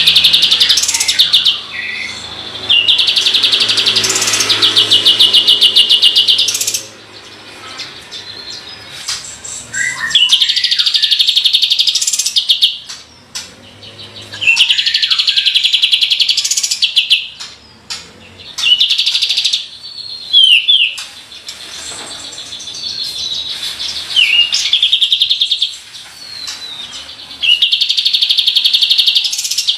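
Kapas tembak bird singing in repeated bouts of very fast, rattling trills, the 'tembakan' roll, each lasting one to a few seconds, with short pauses and a few brief whistled notes between them.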